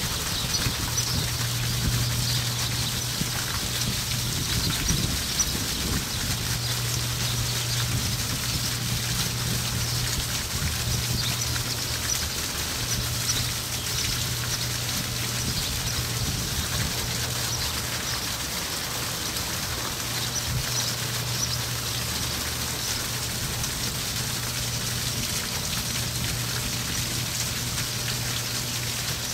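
Outdoor fountain jet splashing steadily into a stone-filled basin, with a low hum underneath that drops out and comes back several times.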